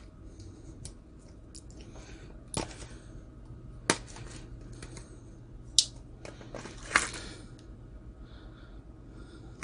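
Hands unpacking a pocketknife from its box and metal tin: faint rustling of packaging with four sharp clicks spread through the middle.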